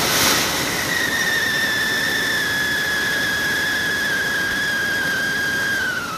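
Whistling fountain firework burning: one steady high whistle over the hiss of spraying sparks. The whistle slides slowly lower and bends down as it dies out near the end.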